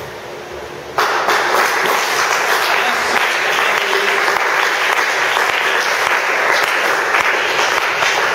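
Church congregation applauding: the clapping breaks out suddenly about a second in and keeps going steadily.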